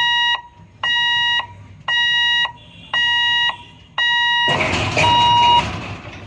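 Railway level-crossing warning alarm sounding a repeating electronic beep, about one a second, each beep just over half a second long. About four and a half seconds in, a loud burst of rushing noise covers the last beeps, then the alarm stops.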